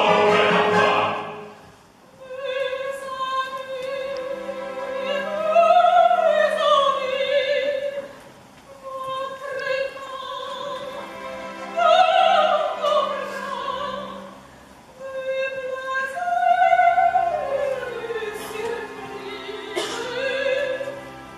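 Operatic soprano singing long sustained phrases with vibrato, with short pauses between them, over soft orchestral accompaniment. A loud full-ensemble passage dies away in the first two seconds.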